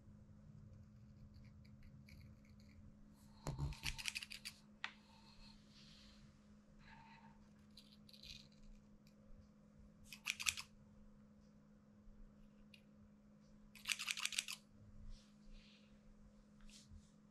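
Small grooming scissors snipping a Shih Tzu's facial fur, in three short runs of quick snips about four, ten and fourteen seconds in, with a few single snips between. A faint steady low hum runs underneath.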